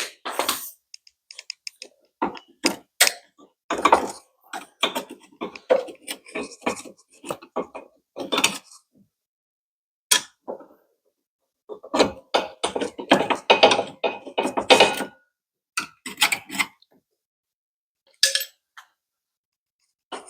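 Hand tools working on a rusted bolt on a classic Mini's rear trailing arm mounting: irregular bursts of metallic clicking and clinking, with short pauses between them.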